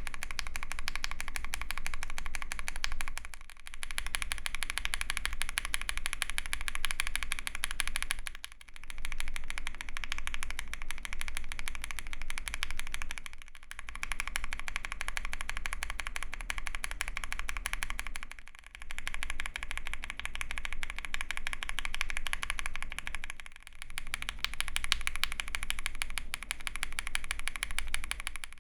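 Mechanical keyboard with lubed and filmed JWK/Durock Epsilon linear switches, a PC plate and GMK keycaps being typed on fast and continuously: a dense stream of keystroke clacks, with short breaks about every five seconds.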